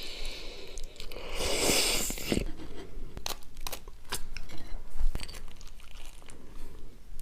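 Close-miked mukbang eating: a person biting into crunchy food and chewing, with a loud crunching bite about a second in followed by a series of sharp crackling clicks.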